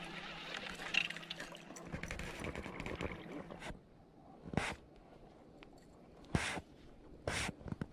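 Baitcasting reel being wound in, a steady low noise that stops about three and a half seconds in. A few separate sharp clicks and knocks follow.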